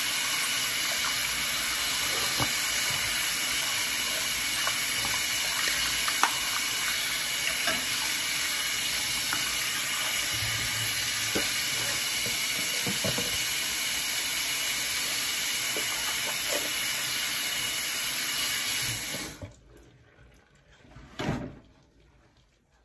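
Bathroom sink tap running steadily, with small knocks and splashes as someone rinses after brushing. The water is shut off about four seconds before the end, followed by a brief rustle of a towel.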